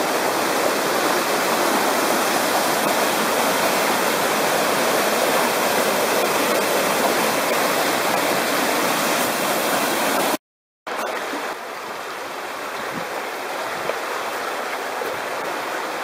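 Fast-flowing stream water rushing over rocks and small cascades, a steady hiss of white water. It cuts out for half a second about ten seconds in, then carries on a little quieter.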